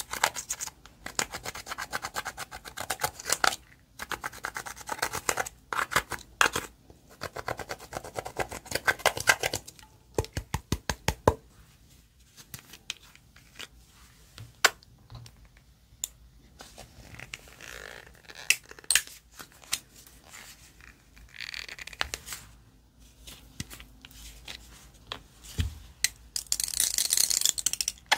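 Slime being worked by hand, with rapid sticky clicks and pops that thin out after about ten seconds into scattered clicks, and a short hissing rush near the end.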